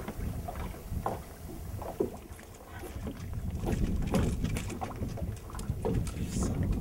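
Wind rumbling on the microphone and water lapping at the hull of a small fishing boat, with scattered light clicks and knocks.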